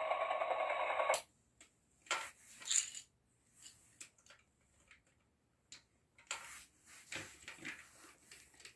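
Plastic Lego pieces being handled and pressed together: scattered light clicks and small rattles. A steady, louder sound plays first and cuts off suddenly about a second in.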